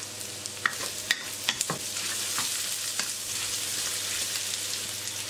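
Green chili peppers and scrambled egg sizzling in a hot wok as a wooden spatula stir-fries them, with a steady hiss of frying. Several sharp clicks of the spatula against the wok come in the first two seconds, and one more about three seconds in.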